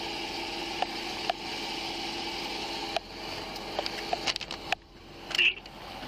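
Steady hum of the sheriff's patrol SUV idling close by, with a few light clicks and a short run of small knocks and rustles about four and a half seconds in.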